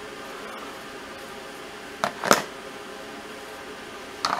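Hard polymer holster plates (a Safariland QLS fork and receiver plate) handled and knocking against each other or the tray, two short sharp clacks about two seconds in and another near the end, over a steady room hum.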